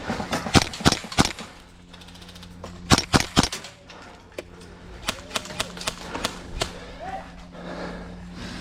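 Airsoft rifle shots: two quick groups of three sharp cracks, about a second in and about three seconds in, followed by a run of lighter, quicker shots.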